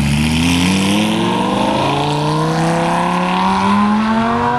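Lamborghini Gallardo Spyder's V10, fitted with a loud aftermarket exhaust, accelerating away with its pitch rising steadily.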